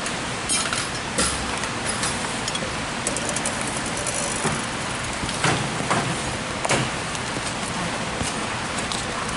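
Scraper blade and flat pry bar working under an RV's fiberglass skin and trim strip to pry the panel loose. A few sharp clicks and cracks sound over a steady background hiss, the loudest a little past the middle.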